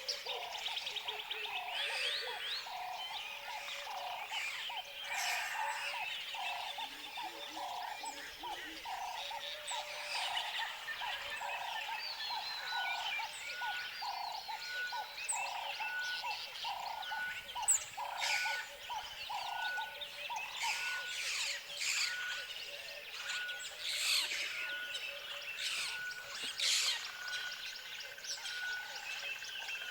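Tropical forest ambience: a dense chorus of birds chirping and calling. Underneath, a lower call repeats steadily about one and a half times a second and stops about two-thirds of the way through. From about halfway in, a short single note repeats about once a second.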